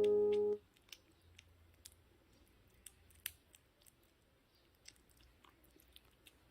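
Piano background music ends about half a second in; then a kitten chewing its food, faint small clicks and crunches at irregular intervals.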